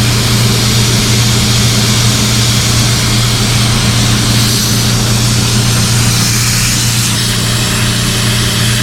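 Gas station coin-operated air compressor running with a steady low hum, and a continuous hiss of air from the air hose at the bicycle tire.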